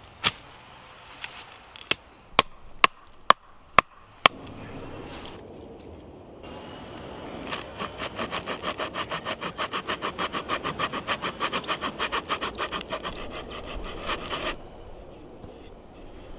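A few sharp wooden knocks, then a hand saw cutting into a wooden stake in quick, even back-and-forth strokes, about five or six a second. The sawing stops shortly before the end.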